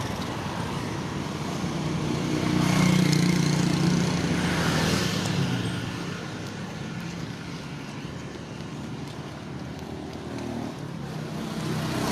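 Road traffic: a motor vehicle passing close by, its engine hum swelling about two seconds in and fading after about six seconds, with traffic going on more faintly after it.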